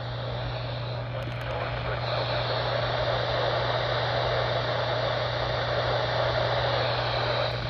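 Steady radio static from a weather radio receiver: an even hiss over a constant low hum, with no alert tones, getting a little louder about two seconds in.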